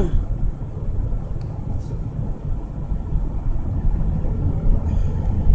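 Steady low rumble of a car driving along at road speed, road and engine noise heard from inside the cabin.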